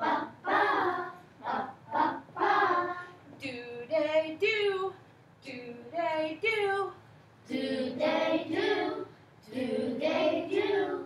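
A woman and a class of children singing short rhythm patterns back and forth in echo fashion, about seven sung phrases of a second or so each with short gaps between.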